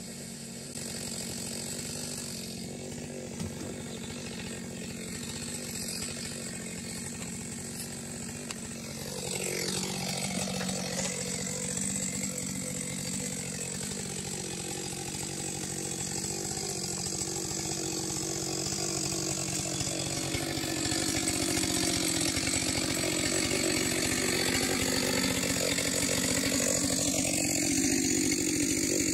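Chainsaw engine running steadily, with its pitch sliding down and up about 9 seconds in and again near the end, and growing louder after about 9 and 21 seconds.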